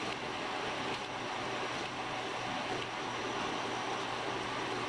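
Machine spindle running steadily, spinning a rubberized abrasive stick that engine-turns (jewels) the metal dashboard, with a steady hum.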